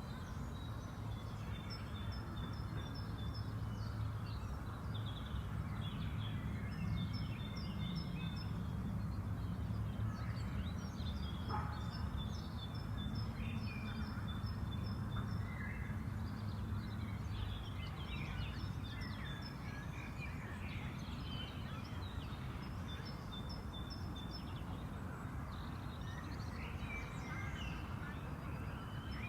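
Park ambience: several birds singing and calling, one repeating short chirps in quick runs, over a steady low background rumble. A single short click sounds about halfway through.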